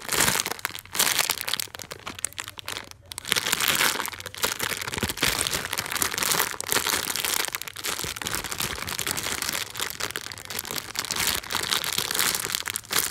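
Clear plastic bag crinkling and crackling as a foam hamburger squishy is squeezed and turned inside it, with a brief lull about three seconds in.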